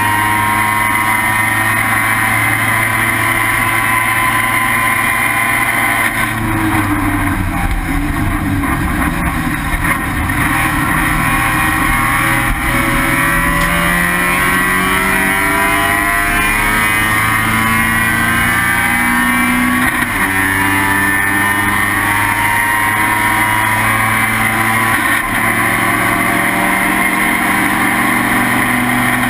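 Mazda RX-7 IT7 race car's 12A rotary engine running hard at high revs. It falls off in pitch about six seconds in as the car slows, then climbs back through the gears, with upshifts about two-thirds of the way through and again near the end.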